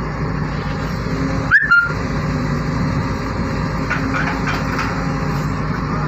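Hyundai long-reach excavator's diesel engine running steadily with a low hum while it holds a vibro hammer and steel sheet pile, with a short high squeal about one and a half seconds in and a few faint metallic clinks near the end.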